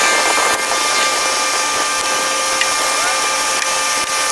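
A steady mechanical whir with a strong hiss and several fixed whining tones, holding level throughout, like a running shop power tool or air-driven machine.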